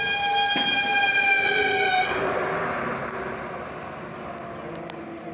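A road vehicle's horn blowing one long, steady high note that cuts off about two seconds in, followed by the rush of the vehicle passing and fading away.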